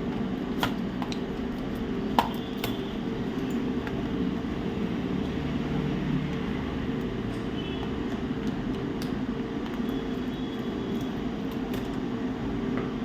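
A few light clicks and taps of small hard parts being handled, as a laptop keyboard's ribbon cable is fitted to the motherboard, over a steady low background hum.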